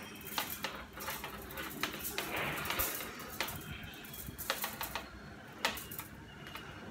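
Bonsai training wire being handled and wrapped onto branches: a run of irregular sharp clicks and ticks, with a short scraping rustle about two seconds in.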